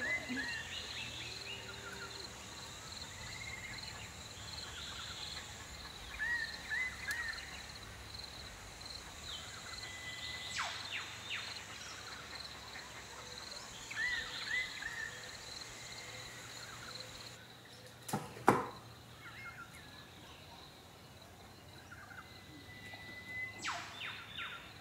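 Subtropical rainforest ambience: a steady high insect drone with birds chirping, and twice a long held whistle that ends in a quick downward sweep. Two sharp knocks come a little past the middle, and they are the loudest sounds here.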